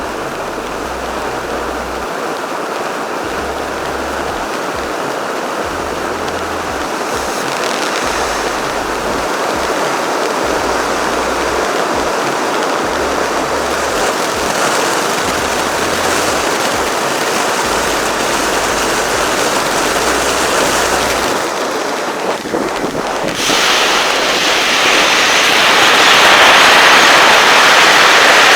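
Silver Spiral ground fountain firework burning: a steady, loud rushing hiss of spraying sparks. It grows louder and sharper about 23 seconds in.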